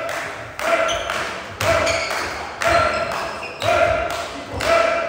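A steady rhythmic beat: a strong stroke about once a second with a lighter one between. Each stroke starts sharply with a short ringing tone that fades, echoing in the sports hall.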